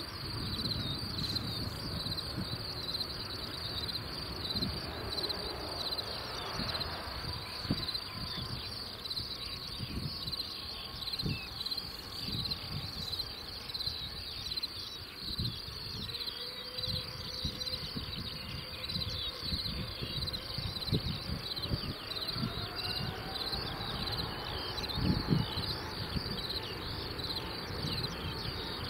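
Steady chirping of insects in the grass, with gusts of wind rumbling on the microphone. Through the middle comes the faint whine of the Boeing 777-300ER's distant GE90 jet engines, rising slowly in pitch as they spool up for takeoff.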